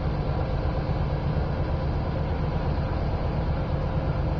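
Bucket truck's engine running steadily with a low, even rumble and a faint steady hum, while the hydraulic boom is working.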